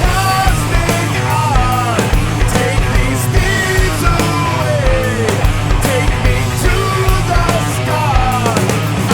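Rock music with a steady beat and a melodic lead line.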